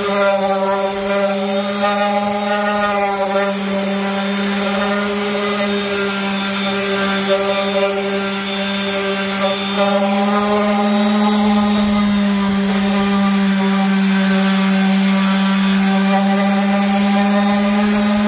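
Makita random orbital sander with 80-grit paper running at a steady, constant pitch, its pad held on the metal pan of an electric skillet with a hiss of grit on the surface. It is sanding the Teflon nonstick coating off down to the stainless steel underneath.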